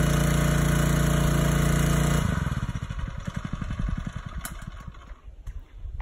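Small engine of a portable water pump running steadily, then switched off about two seconds in: it cuts out and coasts down with slowing, fading pulses until it stops.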